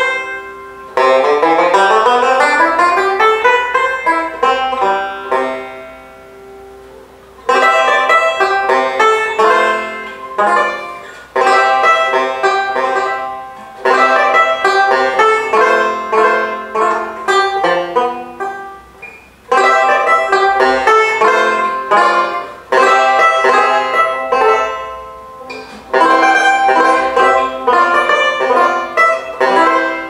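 Gibson "All American" four-string tenor banjo played solo with a pick: a quick rising run of notes near the start, then bright phrases of picked notes and chords, each left ringing away briefly before the next begins.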